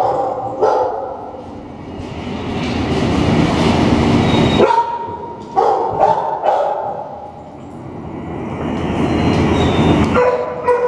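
Dogs barking in a kennel, short sharp barks scattered through. Under them runs a loud rushing noise that swells up twice and cuts off suddenly each time.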